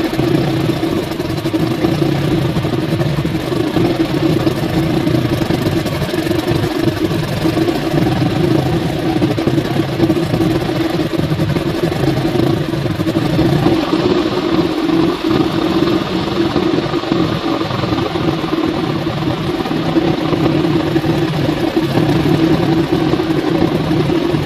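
Mercury 140 hp inline-six two-stroke outboard engine running steadily at a constant speed.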